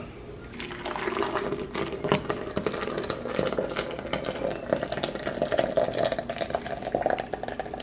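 Thick, hot boiled sea moss liquid poured from a pot into a blender jar, splashing steadily from about half a second in, its pitch rising slowly as the jar fills.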